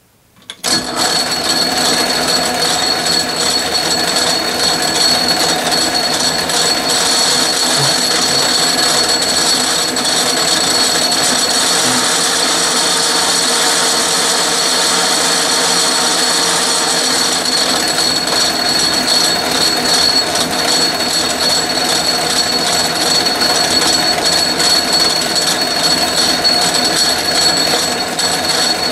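Atlas metal lathe switched on about half a second in and running steadily, with a high whine from its drive and change gears. It is turning the steel part for a light thread-cutting pass of about a thousandth of an inch inside the bore.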